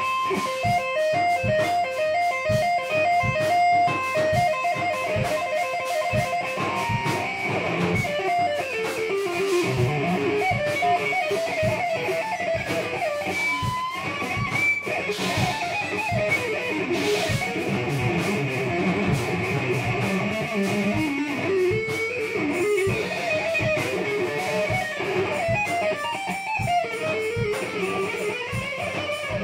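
Instrumental band jam led by electric guitar: a few held notes at first, then melodic lines moving over a steady beat, with no singing.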